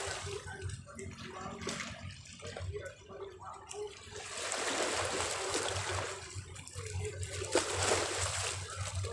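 Small sea waves washing and splashing over shoreline rocks, surging and ebbing: one surge near the start, a lull, then a longer wash from about halfway to near the end.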